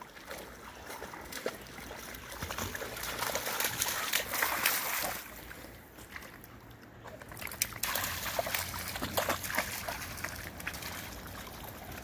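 Dogs wading and splashing through shallow creek water, water sloshing and trickling around their legs, in two louder spells of a few seconds each.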